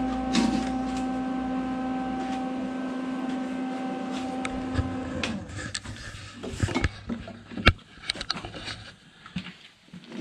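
A steady machine hum stops about five seconds in, followed by scattered metal clanks and knocks as the freshly welded steel driveshaft is handled.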